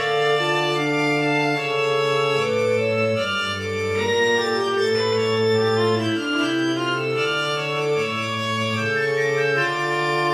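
Music: sustained organ-like keyboard chords, each held a second or two before changing.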